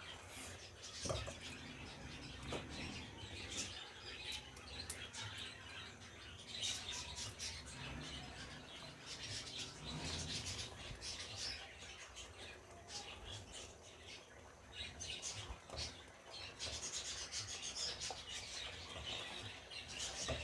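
A spatula stirring and scraping the bottom of a nonstick wok of boiling sohan halwa mixture (milk, sugar and sprouted wheat), while the thickening mixture bubbles with many small crackles and pops.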